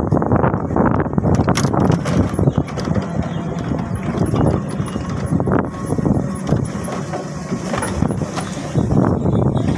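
Motorcycle riding along a sandy dirt road, its running mixed with rushing wind on the microphone and frequent irregular knocks.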